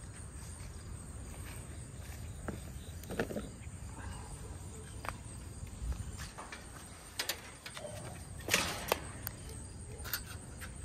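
Handling and walking noises: scattered light clicks and knocks and a brief rustle about eight and a half seconds in, over a steady low outdoor hum. Near the end come a couple of light clicks as a hand takes hold of the gate's latch.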